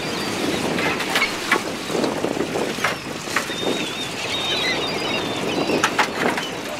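Wind noise on the microphone over a boat deck, with scattered sharp knocks and clinks from the rope, pulley block, shackles and a plastic barrel of scrap metal being hoisted on a davit.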